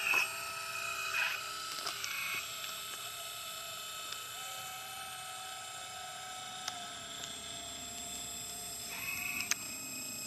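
Small electric motor and hydraulic pump of a 1/12-scale RC excavator whining steadily, surging briefly about four times as it is worked, with a couple of light clicks.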